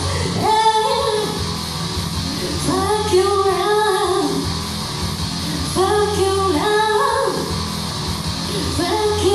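Karaoke: a singer's voice over a rock backing track with guitar, the voice coming in short phrases separated by gaps of about a second or two.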